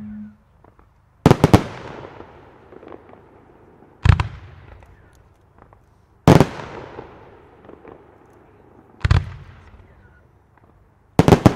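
Italian aerial firework shells bursting overhead: five sharp bangs roughly two to three seconds apart, each trailing off in a rolling echo. The first comes as a quick double and the last as a rapid cluster of reports near the end.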